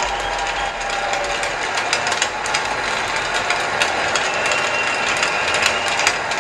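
Large arena crowd applauding, a steady dense patter of many hands clapping.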